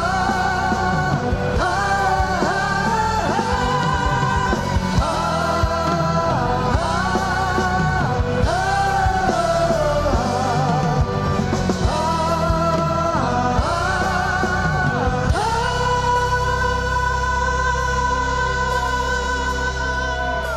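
Live rock band playing, with a male voice singing over electric guitar and band; a long held note runs through the last few seconds.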